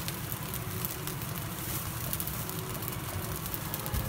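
Beef fried rice sizzling steadily in a stainless-steel wok over a gas flame, an even crackling hiss with no stirring strokes.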